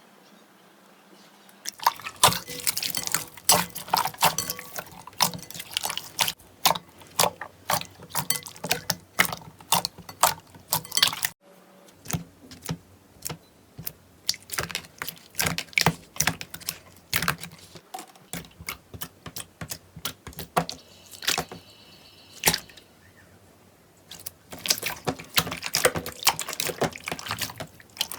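Slime being squished and pressed by hand, giving a rapid run of wet pops and clicks. It starts about two seconds in, breaks off briefly twice, and resumes.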